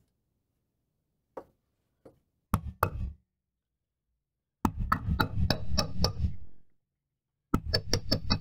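Hammer striking a steel rod laid across the anvil of a bench vise, metal on metal. A couple of single knocks come first, then two quick runs of taps, about four or five a second, each with a short ring.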